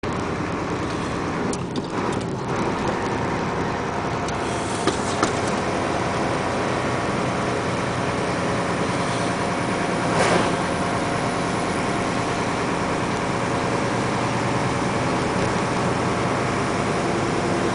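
Steady engine and road noise heard from inside a moving truck's cab. An oncoming vehicle passes with a brief swell about ten seconds in, and there are two short knocks about five seconds in.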